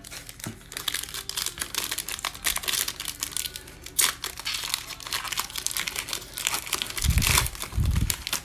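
Foil wrapper of a Panini Mosaic football card pack crinkling and tearing as it is ripped open by hand, with two dull thumps near the end.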